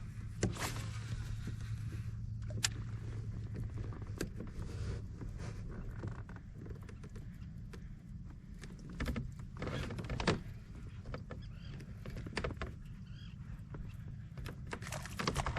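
Scattered knocks and clicks of gear on a fishing kayak, over a steady low hum, with a couple of longer rushing sounds about nine to ten seconds in.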